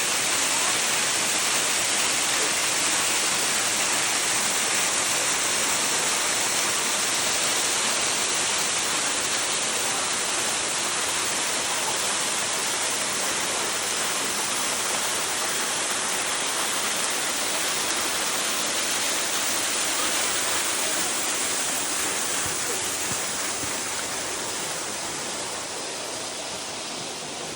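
Canyon waterfall: a steady rush of falling water that grows gradually quieter over the last few seconds.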